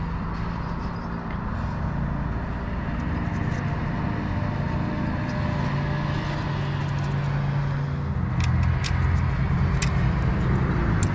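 A vehicle engine running steadily with a low hum, a little louder in the last few seconds. Several light clicks near the end, as of a small metal fitting being handled.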